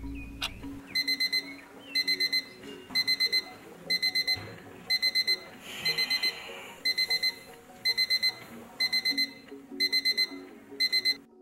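Alarm clock beeping: quick bursts of four high beeps, repeating about once a second, until it cuts off abruptly near the end.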